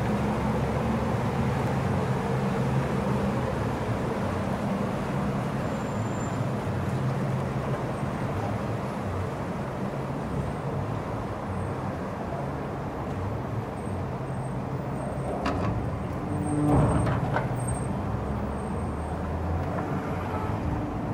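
Steady low rumble of urban road traffic and engines, with a brief louder clatter and hiss about three quarters of the way through.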